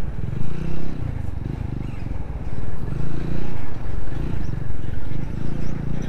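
Motorcycle engine running at low speed on a rough road, its pitch rising and falling in surges as the throttle opens and closes, over a steady low rumble.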